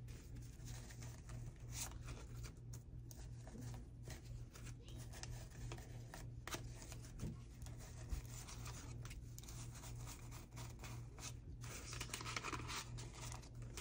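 Faint rustling and crinkling of a stack of paper dollar bills being handled and fanned out for counting, with a pen scratching as it colors in a paper tracker. A faint steady low hum sits underneath.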